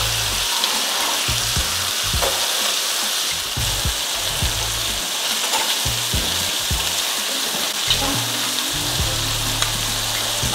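Shrimp sizzling steadily as they fry in hot oil in a skillet, searing on their second side.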